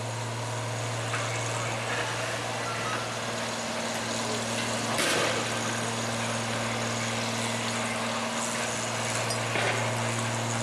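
Heavy police water-cannon truck's diesel engine running steadily, a low hum under a constant rushing noise, with one sharp bang about five seconds in.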